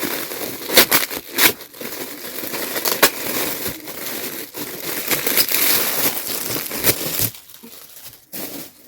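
Gift wrapping being torn open and crumpled by hand: a dense run of crinkling and crackling with sharp rips, dying down about seven seconds in.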